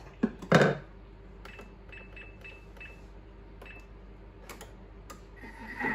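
A knock about half a second in, then a Thermomix's control panel giving short high beeps, about six of them, as its buttons and dial are set for Varoma temperature and spoon speed. Near the end a steady whine sets in as the machine starts running.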